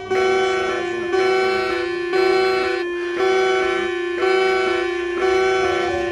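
Emergency alert tone: an electronic, bell-like note pattern repeating about once a second, each pulse starting loud and fading slightly before the next.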